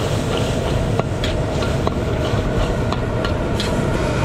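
Metal wok spatula clanking and scraping against a large iron wok while noodles are stir-fried, irregular sharp clanks two or three a second over a steady low rumble and sizzle.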